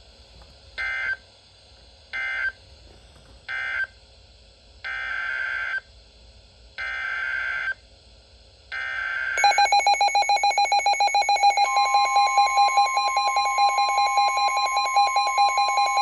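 NOAA Weather Radio SAME digital code bursts over a Midland weather alert radio's speaker: three short raspy bursts, then three longer ones, with silence between. About nine seconds in, the radio's loud, rapidly pulsing electronic alert alarm starts. A couple of seconds later the steady 1050 Hz warning tone joins it, signalling a new warning.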